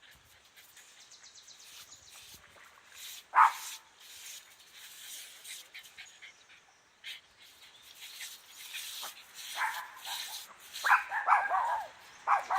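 Dog barking: one sharp bark about three and a half seconds in, then a run of quick barks near the end.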